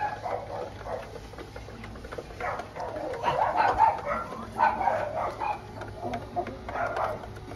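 Backyard chickens calling in several irregular bursts, the loudest a little after three seconds in.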